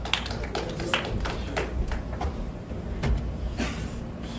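Scattered short taps and knocks at an uneven pace over a steady low hum.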